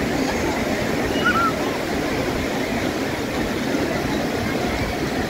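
Steady wash of small surf on a sandy beach, mixed with the chatter of a crowd of beachgoers.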